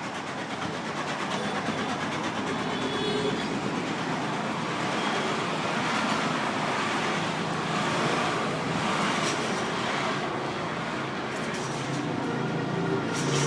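Steady city street traffic noise: motor vehicles running and passing.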